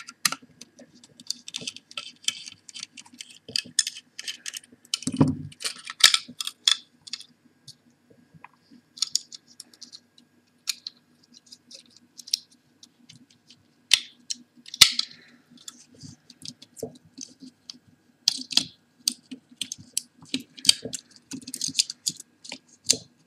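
Small metal clicks, ticks and scrapes of a screwdriver and fingers working the screws and internal parts of a laptop hard drive, in irregular clusters. A duller thump comes about five seconds in and a couple of sharper knocks near the middle, over a faint steady hum.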